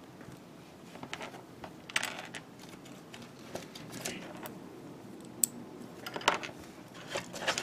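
Small plastic parts of a Bandai G-Frame model figure clicking and tapping as they are handled and fitted together, in scattered irregular clicks, the sharpest a little past the halfway point.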